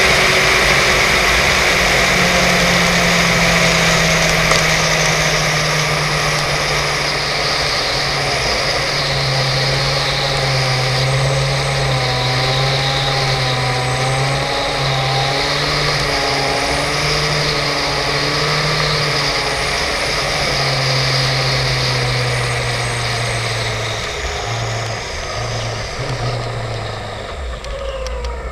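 Suzuki GSX-R750 K5's inline-four engine running at steady cruising revs under heavy wind rush over the microphone. Near the end the engine note breaks up and falls away and the sound gets quieter.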